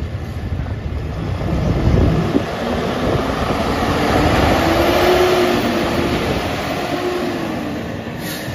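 Fire engine's diesel engine revving hard as it pulls out and accelerates away, with its air horn sounding in long blasts from about halfway through.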